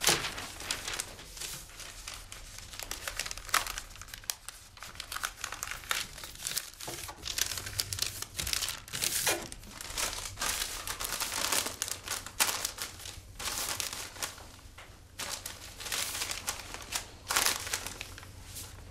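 Newspaper sheets rustling and crinkling as they are handled and folded, in irregular bursts of crackle.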